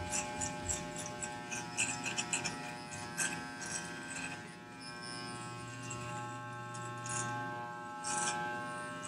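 Corded electric hair clipper with a number two guard buzzing steadily as it is run through damp hair, with short crackles as the blades cut.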